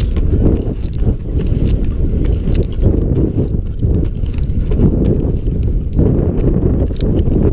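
Lineman's climbing gaffs knocking into a wooden utility pole, one step about every second, as the climber works up the pole on a fall-restriction strap. A heavy low rumble runs underneath.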